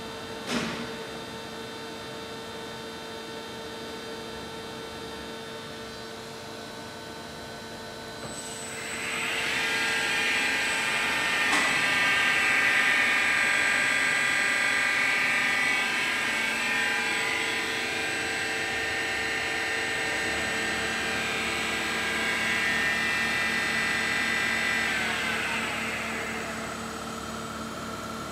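Semco VMC 1000 milling machine's spindle motor running up with a rising whine, running steadily, then winding down near the end before starting to rise again right at the close. A click sounds about half a second in, over a steady electrical hum.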